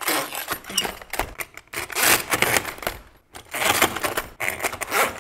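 Metal-cased Nissan Leaf battery modules clacking and scraping as they are slid down threaded rods and set onto a growing stack, a dense run of clicks and knocks with a short pause about three seconds in.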